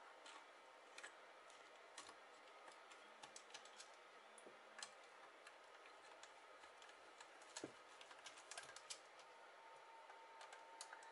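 Faint, scattered clicks and taps of fingers handling a CNC controller's case while opening its lid, with a small flurry of clicks near the end.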